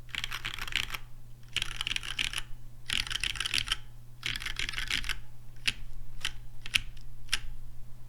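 Typing on a Merisi Works Sessantacinque mechanical keyboard with a brass plate, lubed MX Black linear switches on heavy 80g springs and GMK keycaps. There are four quick runs of keystrokes, then four single, separate key presses near the end.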